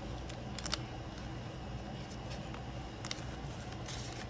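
Paper banknotes being handled and tucked into cash envelopes: a few soft clicks and rustles over a steady low hum.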